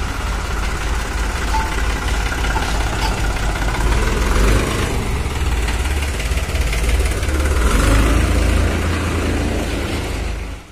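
Tractor diesel engine running steadily at low revs, a loud deep rumble that swells a little midway.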